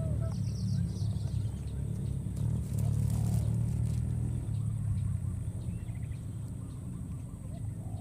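A low, steady motor hum, with faint high chirps about half a second in.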